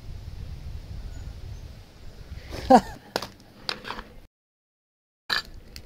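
Wind rumbling on the microphone, then a brief falling call and a few sharp clicks. The sound drops out completely for about a second near the end, at an edit.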